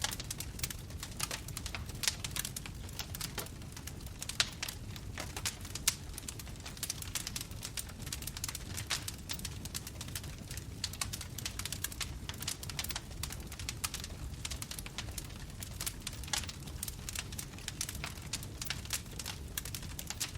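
Wood bonfire crackling: a dense, irregular run of small snaps and pops over the low, steady rush of the flames, with a few sharper pops in the first six seconds.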